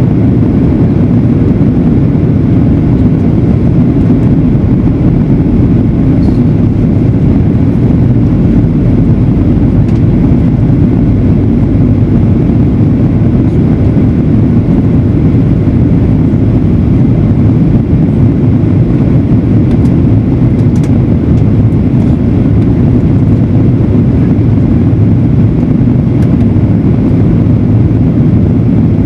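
Steady cabin noise of a Boeing 737-900ER in flight: the CFM56-7B engines and the airflow make a loud, even, low rumble that does not change.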